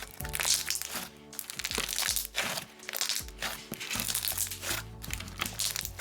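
Thick, glossy slime being squished and pulled by hand, giving a run of small sharp clicks and pops, over background music.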